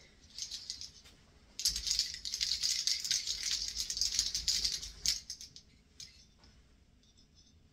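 Many imitation-quarter buttons on a sweater clattering against one another as the garment is handled, a dense rattle of small hard clicks lasting about three and a half seconds from about a second and a half in.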